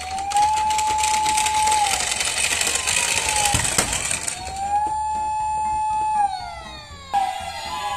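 Emergency-vehicle siren wailing: a tone rises, holds and falls, twice over, with a rushing noise over the first half. Music comes in near the end.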